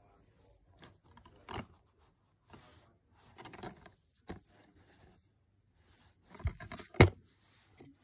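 Plastic DVD cases being handled and slid over carpet: scattered scrapes and light taps, with one sharp clack about seven seconds in.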